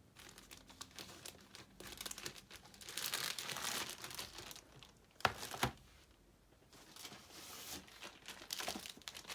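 Plastic packaging crinkling and rustling in bouts as graded comic slabs are unpacked and handled, with two sharp knocks a little past halfway, the loudest sounds.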